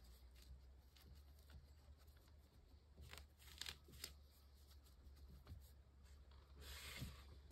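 Near silence: faint rustling and a few soft clicks over a low steady hum, with a short soft hiss near the end.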